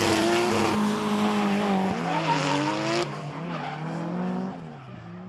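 Drift car's engine revving hard, its pitch rising and falling with the throttle, over the screech and hiss of rear tyres spinning and sliding sideways. The sound drops away sharply about three seconds in and is quieter after.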